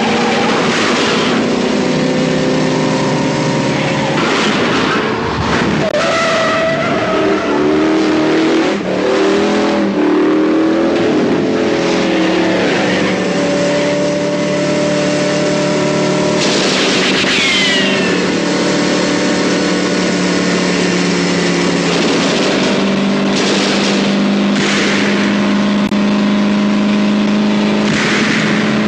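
Car chase soundtrack: a Buick LeSabre Custom and a Chevrolet Impala running hard at speed, engines revving, with several tyre squeals.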